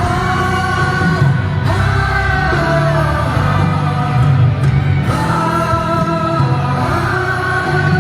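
Live concert music: a band playing with voices singing long held notes.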